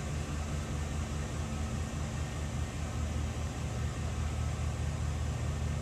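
Chevrolet pickup truck engine running steadily at low revs as the truck creeps forward at walking pace.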